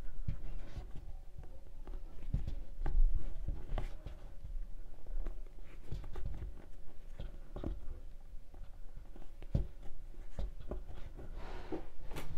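Hands working macrame yarn with a crochet hook: soft rustling of the yarn being pulled through, with scattered light clicks at irregular intervals.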